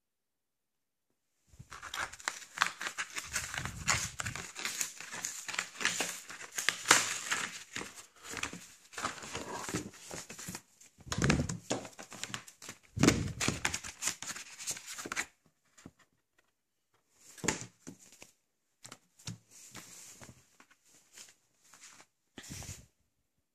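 A cardboard mailer envelope being torn open and handled: dense crinkling and tearing starting about a second and a half in and lasting some thirteen seconds, then scattered short rustles and knocks as a hardcover book is taken out and handled.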